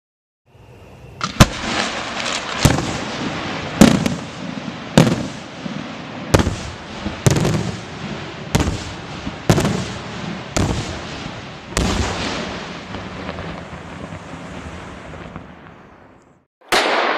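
Italian multi-break aerial firework shell bursting break after break: about ten loud bangs, a little over a second apart, over a continuous rush of noise that dies away. Another loud firework burst starts just before the end.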